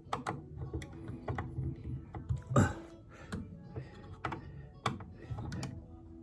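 Irregular light clicks and taps, with one louder knock about two and a half seconds in, from hands handling the model plane's wheel spat and tools on the bench. Faint background music runs underneath.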